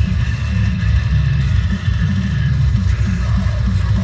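Deathcore music playing loud and bass-heavy, with a dense, pulsing low end of down-tuned guitars and drums.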